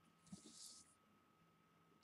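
Near silence: room tone with a faint steady hum and a brief faint rustle about half a second in.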